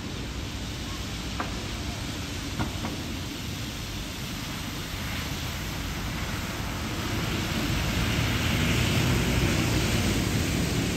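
A vehicle passing on a wet road in the rain: a steady hiss of tyres and rain that swells with a low rumble, loudest about eight to ten seconds in.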